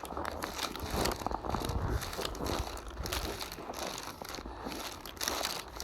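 Snow creaking: a dense, irregular run of small squeaks and crunches.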